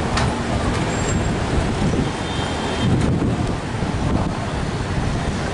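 Steady road traffic noise from the street below, mixed with a fluctuating low wind rumble on the microphone.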